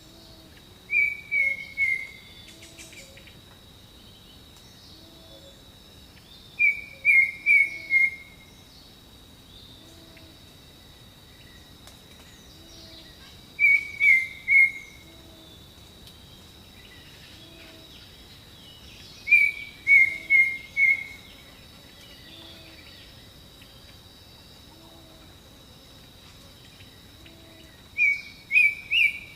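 Jungle ambience: a bird repeats a short phrase of three or four quick descending notes about every six seconds, over a steady high insect drone and faint low calls recurring about every two seconds.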